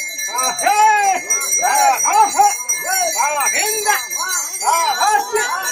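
Brass puja hand bell ringing continuously, heard as steady high tones, over a run of rising-and-falling vocal cries about twice a second.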